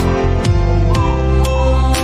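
Background music with a steady beat and deep bass notes that slide downward.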